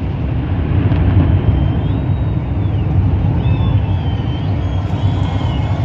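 Steady low rumble of open-air city ambience, with no firework bangs. Faint, thin, high whistling tones come and go from about two seconds in.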